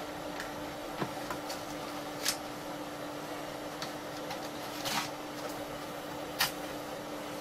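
Steady hum from the powered-up vintage PC, with a few sharp clicks spread out as a 5¼-inch floppy disk is put into its drive.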